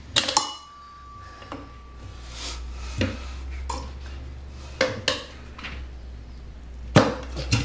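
Metal tire levers clinking and scraping against a motorcycle wheel rim as the tire is pried off by hand. A sharp clink that rings briefly comes just after the start, followed by several separate knocks and clicks.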